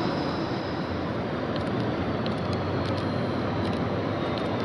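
Street traffic ambience: a steady wash of road noise with a few faint ticks.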